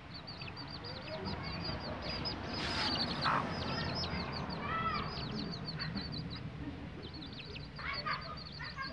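Chicks peeping continuously in rapid, high, falling notes while a naked-neck hen broods them, giving a few low clucks. A brief rustle about three seconds in is the loudest sound.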